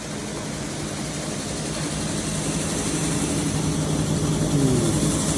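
Machinery running steadily with a low hum, getting gradually louder.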